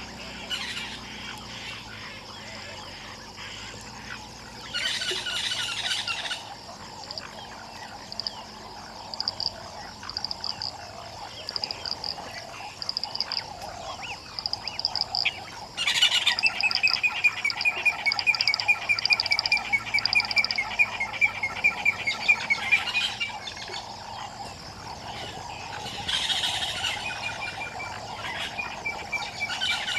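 Frogs and birds calling: a steady chorus underneath, short bursts of calls about five seconds in and again near the end, and a loud run of rapid, evenly pulsed calls lasting about seven seconds from the middle.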